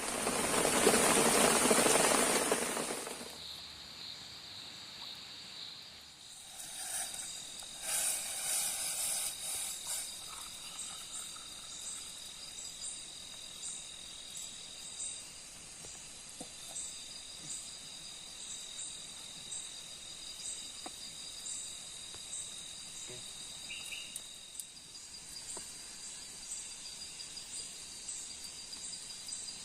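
Rain falling hard for the first three seconds or so, then stopping. Insects then take over: a steady high trill with regular short chirps repeating about one and a half times a second.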